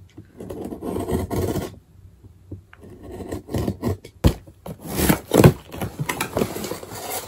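Cardboard box being opened by hand: cardboard rubbing and scraping as the taped seam is worked and the flaps are pulled open, with a sharp knock about four seconds in.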